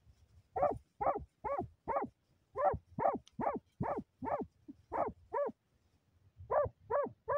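Hunting dog barking in a steady run of about two to three barks a second, baying at a paca cornered in its burrow. The barking breaks off for about a second near the end, then starts again.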